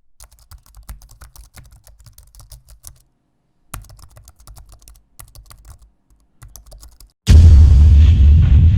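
Rapid, irregular clicking of keyboard typing in two runs with a short pause between them, then a sudden loud boom with a deep rumble that dies away over about two seconds.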